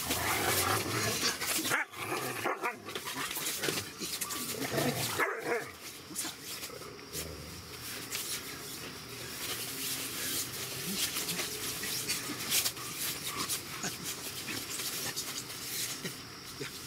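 Dogs barking and whining, mostly in the first six seconds, amid steady scuffling of paws on the tent's groundsheet.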